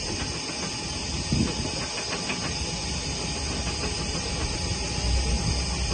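Steady hissing noise with an uneven low rumble beneath it.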